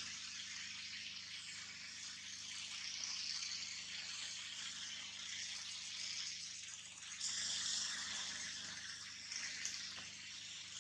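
Steady high-pitched outdoor hiss with no distinct events, swelling a couple of times, about three seconds in and again about seven seconds in.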